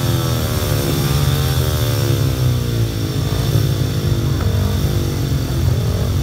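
Several speedway motorcycles racing together, their 500 cc single-cylinder methanol engines running hard, with the pitch rising and falling over and over as the riders work the throttles.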